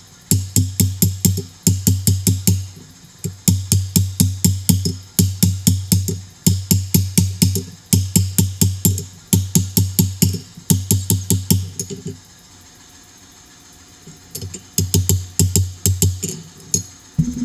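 Background music with a fast drum beat and a bass line, broken by a pause of about two seconds near the end.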